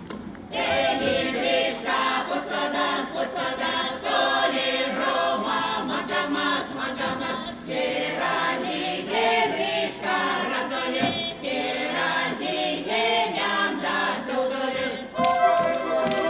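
Veps folk choir singing, many voices together, coming in about half a second in.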